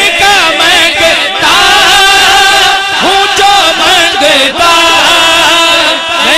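Man singing a naat, holding long ornamented melodic phrases with gliding pitch, amplified through a handheld microphone.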